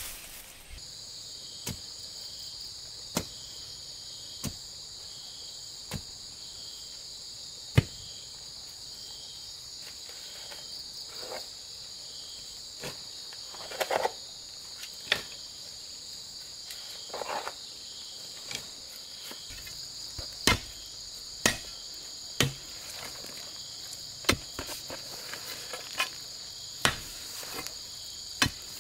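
Insects chirring steadily while a digging bar knocks into soil and stones as a hole is dug, in irregular sharp strikes that come about once a second in the second half.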